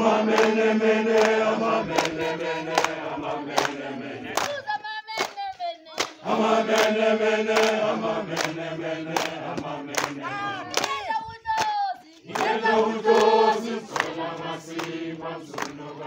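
A crowd of protesters singing a South African struggle song together, call-and-response: twice a single voice leads alone and the group answers. Sharp rhythmic beats from the dancing crowd run under the singing.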